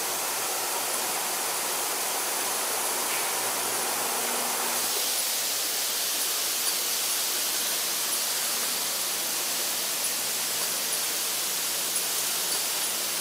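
Steady noise of ammunition-loading machinery running in a factory: an even hiss with a faint hum beneath it and a few small ticks.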